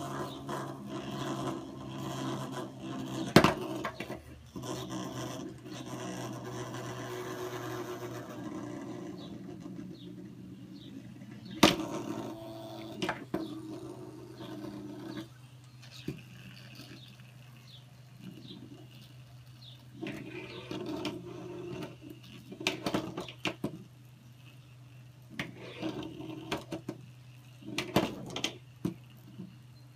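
Plastic spinning-top figure, a 1984 Tomy Break Dancer, spinning and scraping on a wooden tabletop, with several sharp clacks as it tips over, hits the wood and is handled and set going again.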